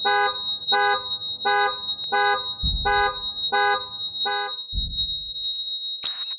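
Car alarm sounding the horn in regular honks about 0.7 s apart, seven of them, stopping about four and a half seconds in, over a steady high-pitched ringing tone. A couple of low rumbles come in the second half, and a short burst of noise near the end.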